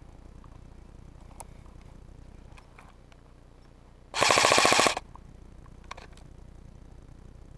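Airsoft electric gun firing a short full-auto burst of rapid, evenly spaced shots, lasting under a second, about four seconds in.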